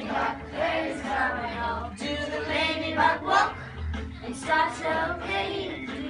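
A group of young children singing a song together, with music playing along.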